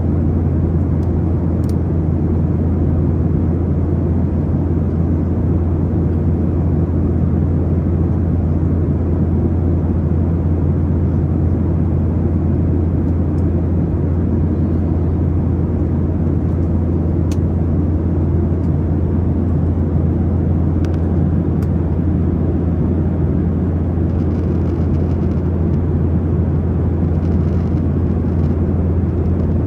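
Airplane noise: a steady low drone that holds the same level throughout, with a few faint clicks.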